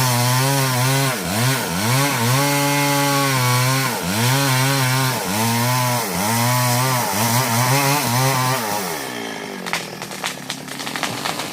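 STIHL MS 382 two-stroke chainsaw at full throttle cutting albasia wood, its engine pitch dipping and recovering under load every couple of seconds. Near the end the engine winds down and drops away, and a run of sharp cracks and snaps follows.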